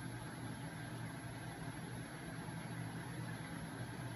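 Homemade magnet engine running: a small 12-volt electric motor spinning a heavy flywheel and magnet crankshaft, giving a steady low hum.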